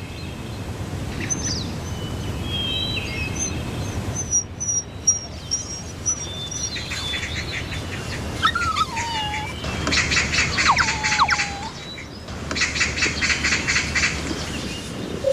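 Birds chirping and calling, with short whistled notes and glides, and two stretches of rapid trilling in the second half, over a steady low background rush.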